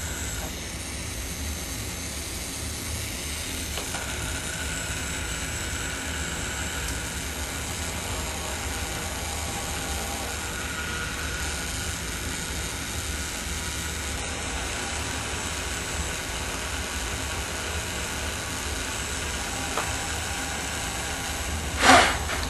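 Small DC hobby motor running with a steady whir. Near the end comes a short loud puff of breath as the candles are blown out.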